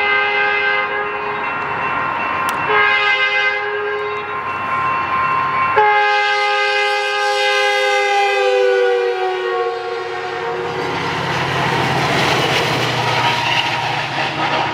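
Locomotive multi-chime air horn sounding three blasts, a short one, a second of about a second and a half, and a long one whose pitch drops partway through as the locomotive passes. It gives way to the steady rumble of the passing train.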